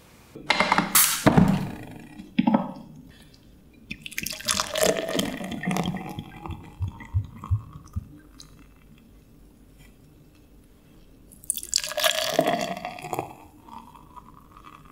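Beer glugging from a glass bottle into a pint glass, two separate pours with the foam hissing. The second pour rises in pitch as the glass fills. A few short knocks come near the start.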